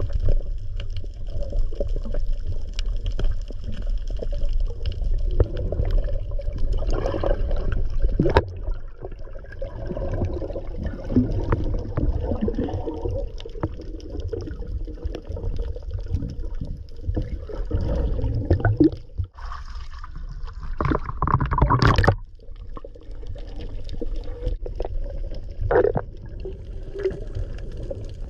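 Water sloshing and gurgling over a steady low rumble, with scattered knocks and splashes; the loudest comes about twenty-two seconds in.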